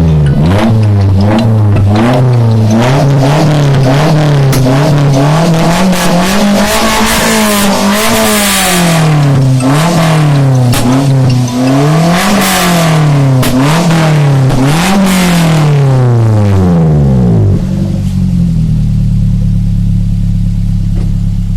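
Engine with a newly fitted aftermarket exhaust being revved repeatedly from idle, its pitch rising and falling about a dozen times with one longer held rev in the middle. At about 17.5 s it drops back to a steady idle.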